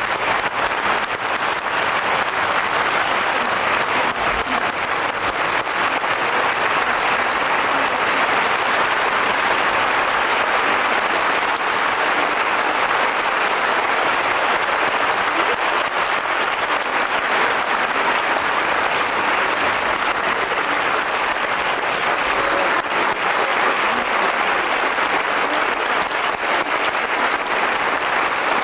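Concert-hall audience applauding steadily, a dense unbroken clapping with no music underneath.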